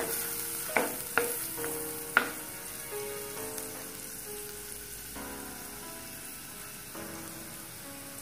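Crushed garlic, ginger and whole spices sizzling in hot coconut oil in a clay pot, the sizzle slowly getting quieter. A ladle clicks against the pot four times in the first couple of seconds while stirring.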